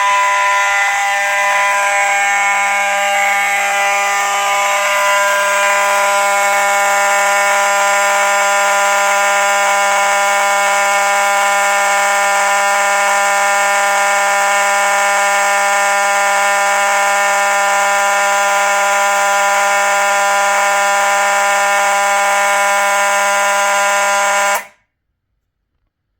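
Faraday 6234-E fire alarm horn, an electromechanical horn of the common Simplex-type mechanism, sounding continuously with a loud, steady buzzing tone and no pulsing. It cuts off suddenly near the end.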